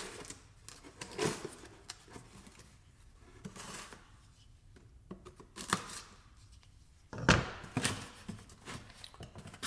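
Cardboard box being opened and unpacked: scattered rustles, scrapes and light knocks of cardboard and packaging, with a louder run of knocks and rustling about seven seconds in.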